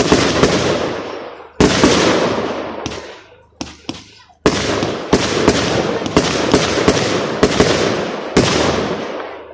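Fireworks display: aerial shells bursting with sharp bangs about every second or two, seven or so in all. Each bang is followed by a dense crackling wash that fades over a second or two.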